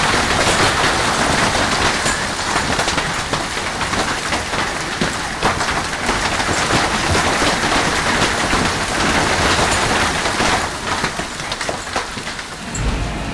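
Large hail pelting down hard: a dense, loud hiss of hits with many sharp, separate cracks of hailstones striking hard surfaces.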